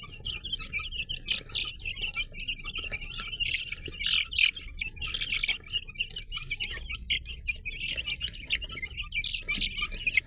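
A crowd of baby chicks peeping continuously, many short high calls overlapping.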